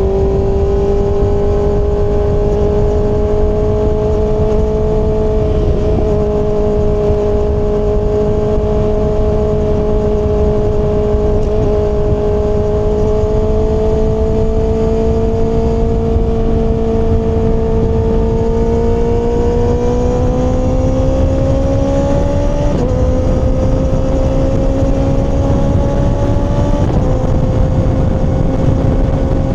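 Kawasaki ZX-6R inline-four sport bike engine cruising at a steady pitch, then climbing slowly. Two quick dips in pitch near the end are upshifts, with wind noise rumbling underneath.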